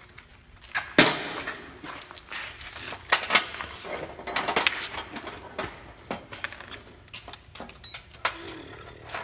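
Metal tools and hardware clinking and knocking at irregular moments as a seat-harness bolt is worked loose, with the sharpest knock about a second in and a quick run of clinks around three seconds.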